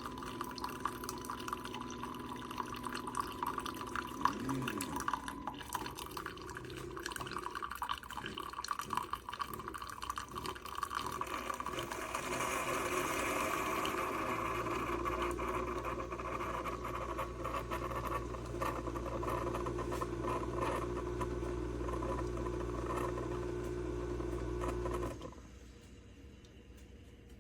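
Coffee maker brewing: liquid trickling and pouring into a cup, then a steady low pump hum that runs for about ten seconds and cuts off suddenly near the end.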